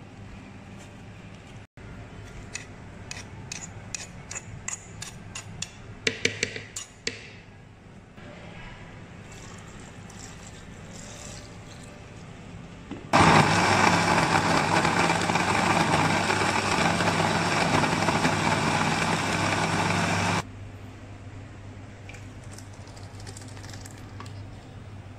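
Electric blender running for about seven seconds, starting and stopping abruptly, its motor giving a steady hum under the noise of the mix being chopped. Before it, a string of light clicks and taps as chunks are cut off with a knife and dropped into the plastic blender jar.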